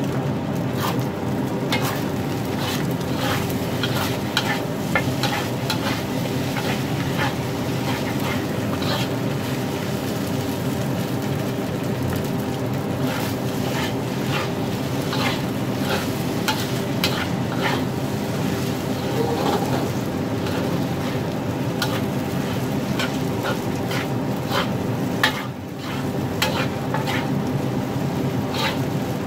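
Metal wok ladle repeatedly scraping and clinking against a wok as egg-coated fried rice is stir-fried over low heat, with a steady sizzle and a low hum underneath.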